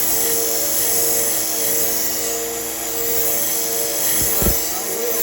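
Belt sander running with a knife blade being ground on the abrasive belt: a steady, high hiss over the motor's hum, with one brief low thump about four seconds in.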